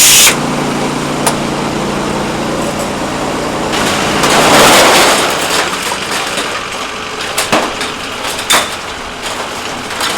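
An engine idling steadily, with a few sharp metal knocks and a swell of rushing noise about four to five seconds in.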